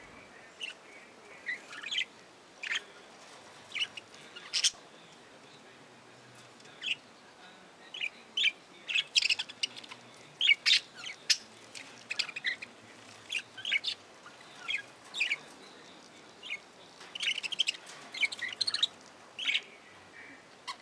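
Budgerigars chirping: short, high calls at irregular intervals. There is a lull of about two seconds, then busier clusters of chatter in the middle and again near the end.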